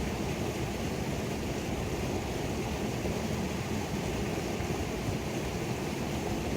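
Creek waterfall rushing steadily: an even, unbroken wash of falling water, fullest in the low and middle range.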